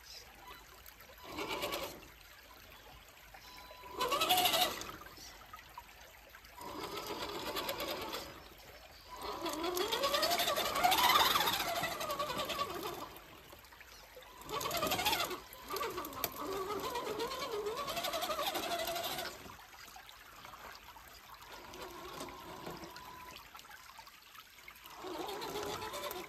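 An RC 6x6 crawler truck's electric motor and drivetrain whine in repeated short bursts. The pitch rises and falls as the truck speeds up and slows while it climbs. Between the bursts, water trickles faintly.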